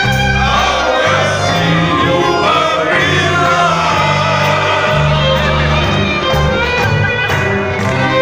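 Live band playing loud music with electric guitars and singing, recorded from among the audience.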